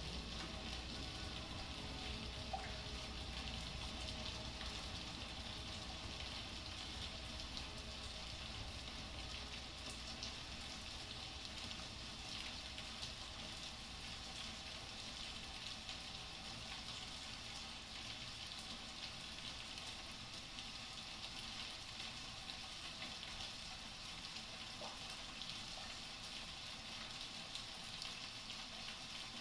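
A steady, even crackling hiss like rain or sizzling, strongest in the upper range, with a faint low rumble under it that thins out after about ten seconds.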